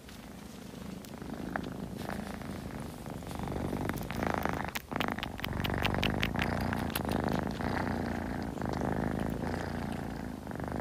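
Domestic cat purring steadily close to the microphone, growing louder over the first few seconds, with a few soft clicks over it.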